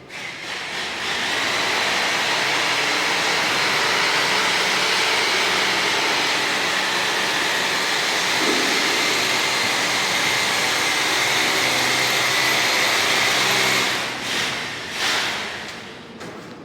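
A steady machine noise: a motor running with a high whine over a rushing hiss. It starts suddenly, holds level for most of the time, then wavers twice and dies away near the end.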